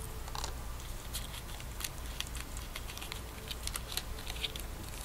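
Faint scattered clicks and crackles, irregular and several a second, over a steady low hum.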